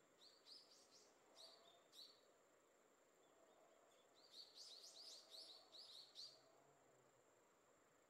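A small songbird chirping: a few short rising notes, then a quick run of about ten rising chirps around the middle. A steady high-pitched insect drone continues underneath.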